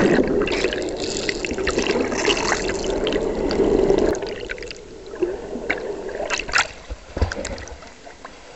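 Water gurgling and rushing around a camera held underwater, heavy for about the first four seconds, then fading to fainter bubbling with scattered short pops.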